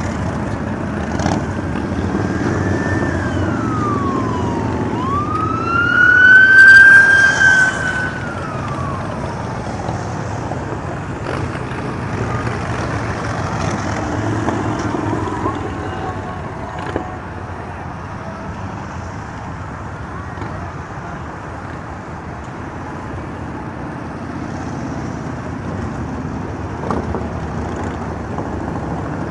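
Motorcycles passing on a highway one after another, engines running steadily, with a siren wailing over them: its pitch rises and falls twice, loudest about seven seconds in.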